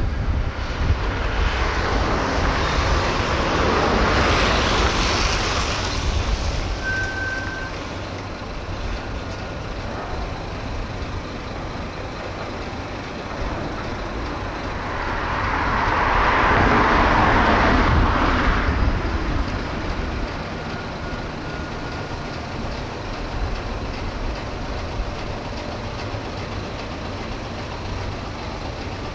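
Road traffic passing close by: two vehicles swell up and fade away, one near the start and a louder one about fifteen seconds in, over a steady low rumble.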